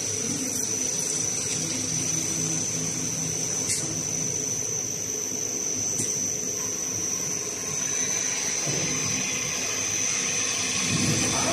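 Light roll cutting machine running: its electric motor drives a circular blade cutting into a spinning roll of stretch film, a steady whir with a thin high whine and a low hum.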